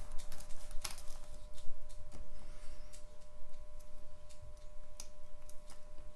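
A lock pick and tensioner working the pins of a five-pin pin-tumbler challenge lock core, giving light, irregular metallic clicks as pins are lifted, set and dropped.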